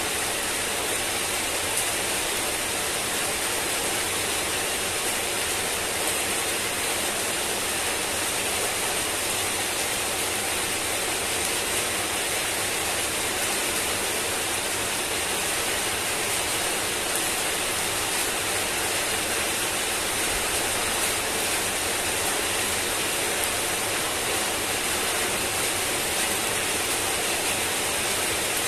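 Heavy rain falling steadily on paving and leaves: a dense, even hiss with no breaks.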